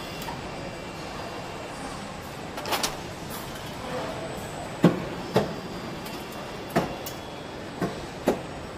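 Car assembly line noise: a steady hum of factory machinery with about six sharp clicks and knocks, the loudest about five seconds in.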